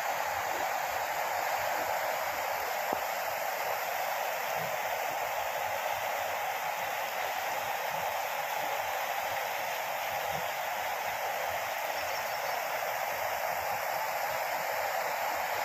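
Steady, even rushing of water in a heavy downpour.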